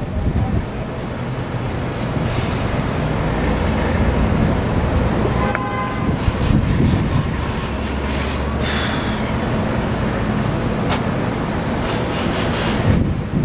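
Wind buffeting the microphone over a steady low rumble, with a brief horn-like toot about six seconds in. A few sharp clicks around the same time come from a disposable lighter being struck, and one more click comes near the end.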